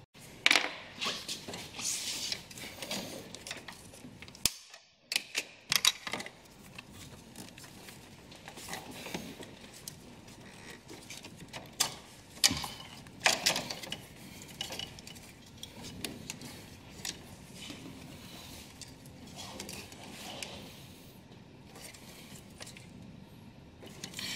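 Hands working a plastic multi-pin wiring connector loose in a car's engine bay: scattered clicks, taps and rattles of plastic and wiring, with a short silent break about five seconds in.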